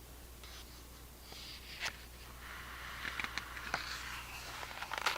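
Pages of a large picture book being handled and turned: soft paper rustling with a few light clicks.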